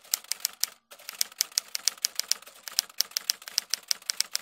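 Typewriter key-click sound effect: a quick, even run of sharp clicks, about six a second, with a brief break just under a second in.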